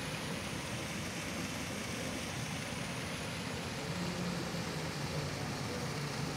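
Steady background hum and hiss with no distinct events; a faint low tone joins about four seconds in.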